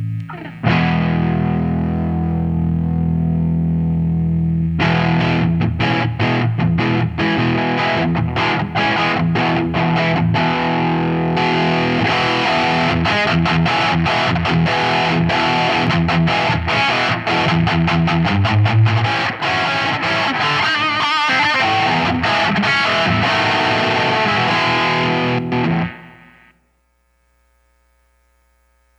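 Distorted electric guitar played through a Line 6 POD HD300 amp model, recorded direct without a microphone. A held chord rings out first, then fast, chopped riffing runs for about twenty seconds and stops abruptly a few seconds before the end.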